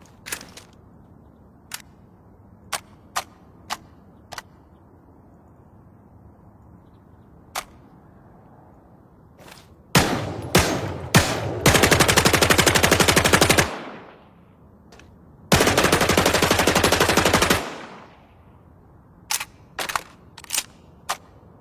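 Suppressed Thompson submachine gun sound effect: scattered single shots, then two long full-auto bursts of about two seconds each, then a quick string of single shots near the end.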